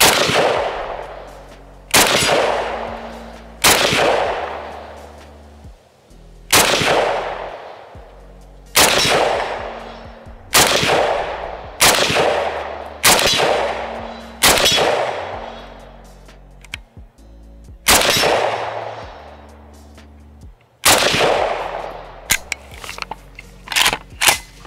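IWI Galil Ace II pistol with a 13-inch barrel in 7.62x39 firing a string of about a dozen single, deliberately paced shots, one every one to three seconds. Each shot is a sharp crack that rings out and fades for over a second. Near the end come a few quick, light clicks and knocks of the gun being handled.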